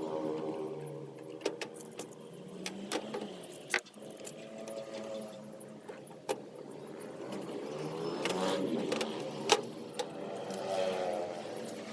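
Scattered small clicks and knocks from handling circuit boards, wires and connectors during a board swap, the sharpest about two-thirds of the way in. Background music plays underneath.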